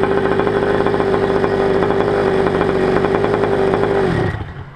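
Small two-stroke engine of a Goped GTR scooter idling steadily at one even pitch, then switched off a little after four seconds in, its note dropping as it winds down. The engine runs on a 25:1 fuel mix, and the owner wonders whether it sounds too rich.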